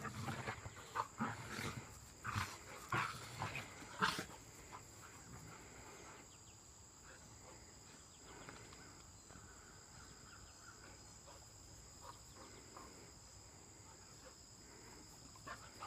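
Rottweiler and puppy play-growling as they wrestle, in a run of short bursts over the first four seconds or so, after which the dogs go mostly quiet.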